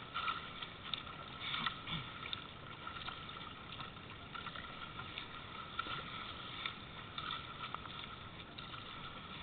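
Water washing and splashing against a surfski's hull as it is paddled through choppy sea, the paddle blades dipping in; a steady wash with small irregular splashes.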